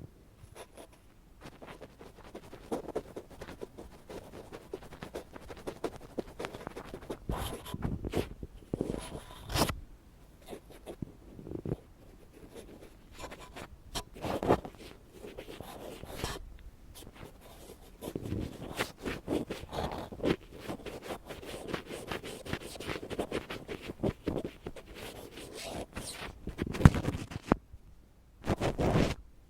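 Ear pick scratching and scraping in a dense, irregular run of rough scratches and small clicks, with a few louder strokes.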